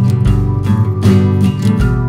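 Background music of strummed acoustic guitar over a low bass line, in a steady rhythm.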